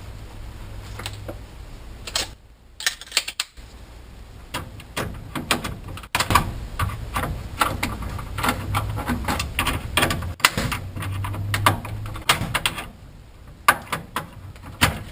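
Irregular small clicks, taps and rattles of hands working at a clothes dryer's opened control panel, handling wire connectors, switch and multimeter test leads, over a steady low hum.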